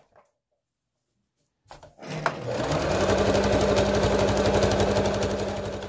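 Domestic electric sewing machine starting up after a near-silent moment and then stitching steadily through thick towel fabric, a fast even needle rhythm over a motor hum.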